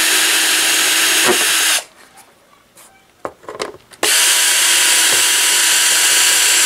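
Cordless drill/driver running in two long stretches, backing out the screws that hold a speaker in its cabinet, with a pause of about two seconds and a few light clicks between them.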